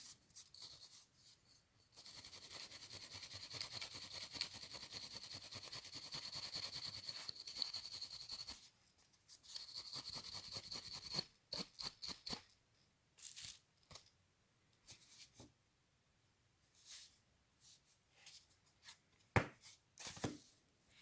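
Quick, fast scrubbing as grey shoe polish is buffed onto a toy car's small rubber tires, in two long stretches, followed by scattered light clicks and taps with one sharper knock near the end.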